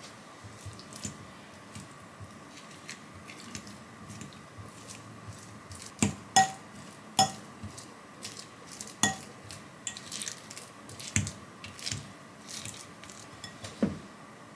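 A metal fork mashing cooked sweet potatoes in a glass bowl, with irregular clinks of the fork against the glass. The loudest clinks come about six to nine seconds in and once near the end.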